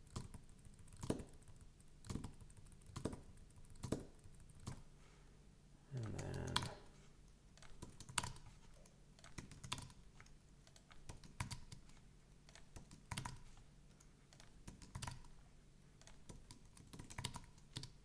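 Computer keyboard being typed on in scattered keystrokes, sharp clicks spaced about a second apart with some quick clusters, as code is edited. A short hummed vocal sound about six seconds in.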